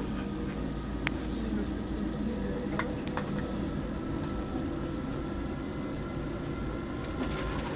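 VR Eil passenger coach running, heard from inside: a steady low rumble with a few sharp clicks and rattles, and a faint steady whine joining about halfway.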